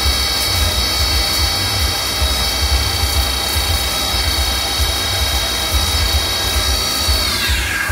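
Mazak Integrex 35's milling spindle whining steadily while an end mill cuts plastic round bar under flood coolant, over a low fluttering rumble. Near the end the whine falls in pitch as the spindle slows down.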